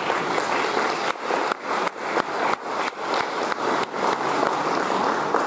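A large audience clapping steadily, dense applause with no cheering voices.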